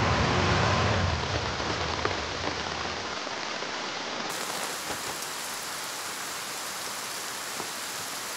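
Heavy rain falling steadily, a dense even hiss. In the first couple of seconds a car passes on the wet road, its low rumble fading out by about three seconds in.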